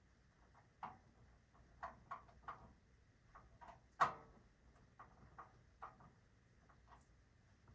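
Faint, irregular small clicks and taps of alarm-panel wires being handled and connected, with one sharper click about four seconds in.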